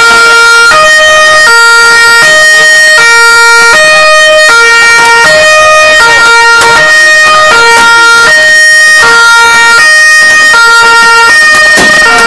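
Loud two-tone emergency siren, alternating steadily between a low and a high note, each held about three quarters of a second.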